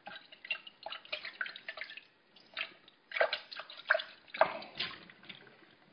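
Water splashing and dripping in a glass as a pint glass is rinsed out with distilled water: an irregular run of short splashes and drips, loudest about three to five seconds in.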